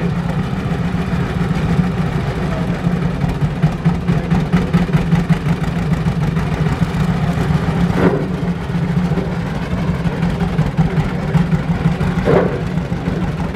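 John Deere two-cylinder tractor engine running steadily at low speed, with a rapid, uneven pulsing loudness, as the tractor is inched back and forth on a balance beam.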